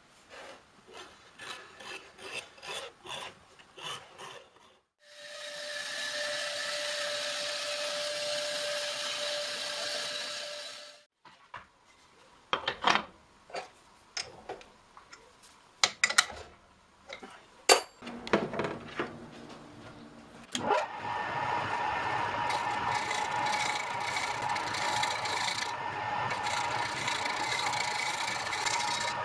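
A wood lathe running steadily, with a turning chisel cutting a spinning wooden blank through the last third. Before it come short scratching strokes of dividers marking a wood blank, a power tool running for about six seconds, and a series of sharp knocks.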